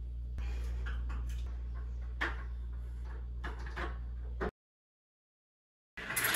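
Knocks and scrapes of a retractable clothesline's housing and hand tools against wall tiles while it is being fitted, over a steady low hum. The sound cuts out abruptly near the end, then resumes with louder clattering.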